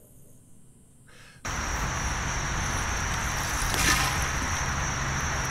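Quiet room tone, then an abrupt change to steady outdoor background noise with a constant high drone, and a brief louder rush about four seconds in.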